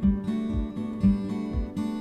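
Instrumental music with strummed acoustic guitar and a steady beat about twice a second.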